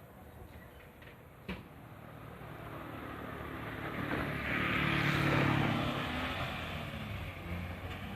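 A road vehicle driving past, growing louder, loudest about five seconds in, then fading away, with a single sharp click shortly before it comes close.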